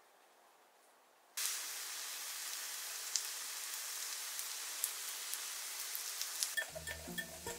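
Food sizzling in a hot pan: a steady hiss with scattered crackles that starts suddenly about a second and a half in. Soft music comes in near the end.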